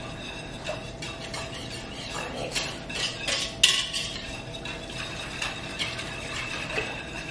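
Wire whisk beating a thin buttermilk batter in a mixing bowl, its wires clicking and tapping against the bowl in an uneven rhythm, with one sharper knock about three and a half seconds in.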